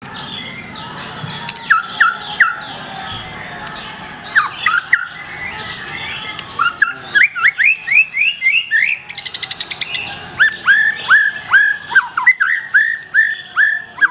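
Black-tailed white-rumped shama (murai batu ekor hitam) singing: loud, sharp notes repeated in short runs, a quick rattling trill about two-thirds of the way in, then a long run of evenly repeated notes near the end.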